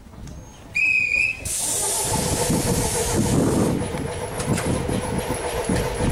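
Train Jaune narrow-gauge electric train: a brief high tone about a second in, then a loud hiss of air lasting about two seconds, then a steady rumble and hum as the train stands at the platform.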